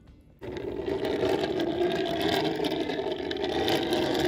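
A steady, engine-like running sound that starts suddenly about half a second in and holds on at a loud, even level.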